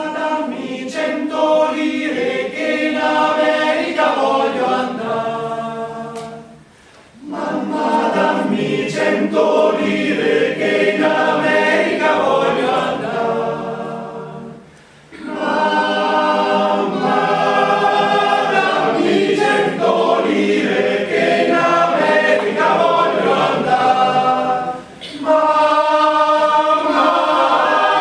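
A choir singing in several voices, in phrases broken by three short pauses.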